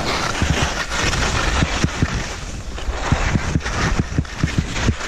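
Skis running downhill over uneven snow: a steady rush of wind across a helmet-mounted GoPro microphone, broken by quick irregular thuds, several a second, as the skis knock and scrape over the bumps.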